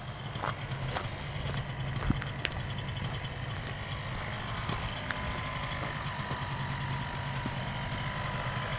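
Miniplane Top 80 paramotor's small two-stroke engine idling steadily, with a few light knocks, the loudest about two seconds in.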